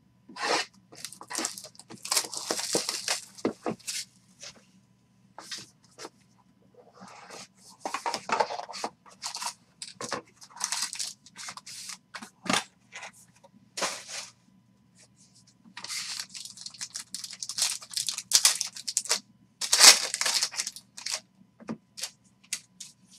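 Trading-card packaging torn open by hand: bursts of tearing and crinkling of the box wrap and a silver foil card pack, in three spells, the loudest near the end as the cards are pulled out.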